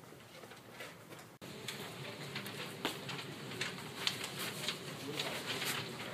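Footsteps of several people walking on a hard hallway floor, irregular light taps over a low room hum.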